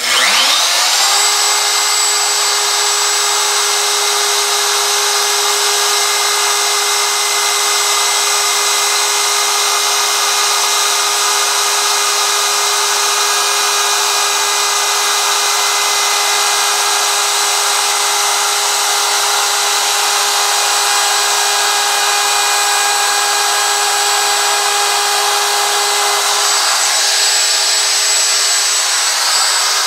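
DeWalt DW618 router with a Whiteside bit switching on and whining up to speed within about a second, then running steadily and really loud as it cuts a line into a wooden sign board. The whine briefly changes a few seconds before the end.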